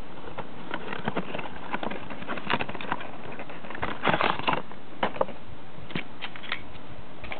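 Small plastic clicks and rustles from a toy being handled, scattered over a steady hiss, with a denser flurry about four seconds in.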